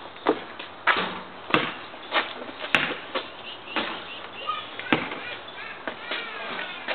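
Basketball knocks: the ball bouncing on an asphalt court and striking the backboard and rim, a run of irregular sharp knocks about every half second to a second.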